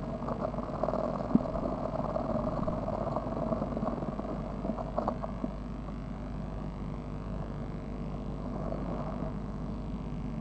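Blue tit chicks shuffling and preening inside a nest box: muffled rustling and scrabbling against the nest, with a few small knocks, the sharpest about a second in, over a steady low hum.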